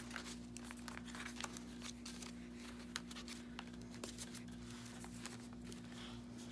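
Paper rustling and crinkling as the pages of a junk journal filled with paper scraps and vellum are leafed through, with small irregular clicks and swishes. A steady low hum runs underneath.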